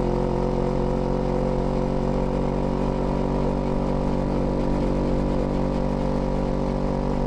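Kawasaki Z400's parallel-twin engine running steadily at constant revs, its note holding one even pitch throughout.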